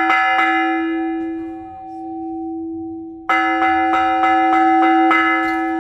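Blizzard bell struck in quick runs of about three strokes a second. One run ends just after the start and the bell rings on, dying away for about three seconds. Then a second run of about seven strokes is left ringing. The breaks between runs mark the blizzard signal, so that it is not taken for a fire alarm.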